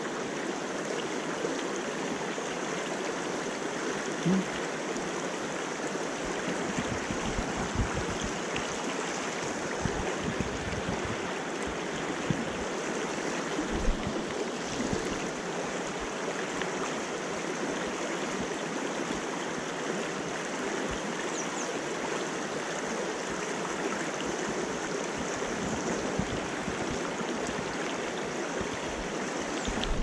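Mountain stream running over a shallow rocky riffle: a steady, even rush of water, with a few low thumps about a quarter to halfway through.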